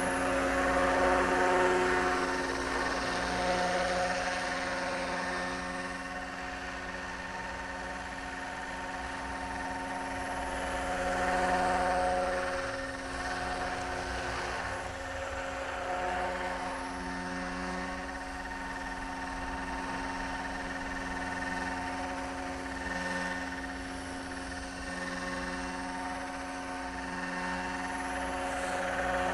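Roban AS350 scale RC helicopter flying and hovering: a steady whine of its motor and rotors with several held tones, swelling louder and easing off a few times as it moves nearer and farther.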